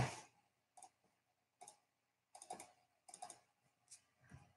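Faint, irregular clicking from someone working a computer: about six short clicks and small clusters of clicks, roughly one every second.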